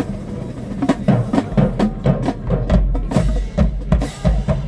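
High-school marching band drumline playing a fast cadence of sharp snare hits and deep bass drum strokes. The bass drums come in heavier about a second and a half in, with cymbal crashes near the end.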